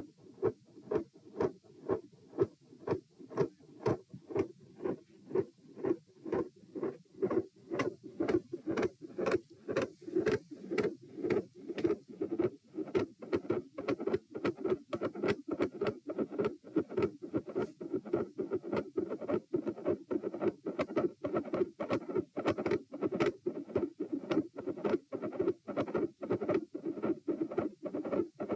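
Human heart sounds recorded at the chest, with a regular lub-dub beat in which the second sound is loud and the first very quiet. From about ten seconds in the beats come faster and closer together and extra sounds appear between them. This is the crouching manoeuvre bringing out a split first sound or mid-systolic click and widening the split of the second sound.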